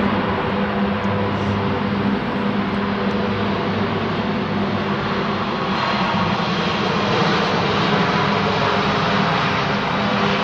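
The four Rolls-Royce AE 2100 turboprop engines of a Lockheed Martin C-130J-30 Super Hercules run steadily at the runway threshold, a loud propeller drone with steady low tones. From about six seconds in, the engine noise of a taxiing jet airliner adds a broader hiss.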